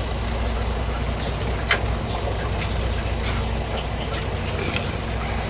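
Fishing boat's engine running steadily with a low drone, under a wash of running water, and a few light clicks, one about a second and a half in and another near the end.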